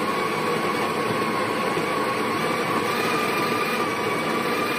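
The built-in conical burr grinder of a Breville (Sage) Barista Express BES870 espresso machine running, grinding coffee beans into the portafilter. It makes a steady motor whine that rises slightly in pitch.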